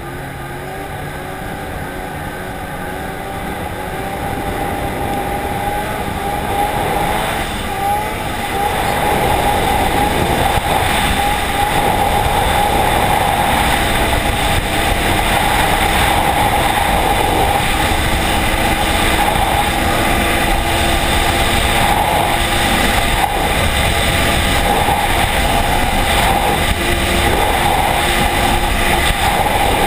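Arctic Cat ZR4000RR snowmobile engine pulling hard on a studded track. It builds louder over the first eight or nine seconds, then holds a loud, steady high-speed run near top speed.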